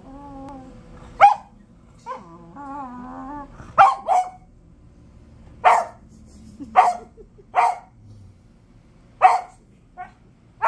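A hound-type dog barking at a cat in sharp single barks, about seven spread irregularly a second or so apart, with high wavering whines between the barks in the first few seconds.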